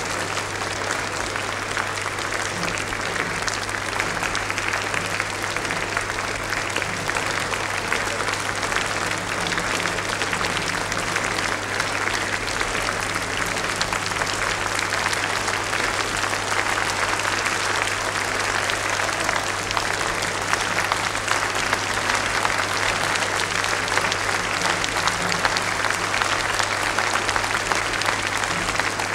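Large concert-hall audience applauding steadily at the end of a performance, a dense even patter of many hands. A steady low hum runs underneath.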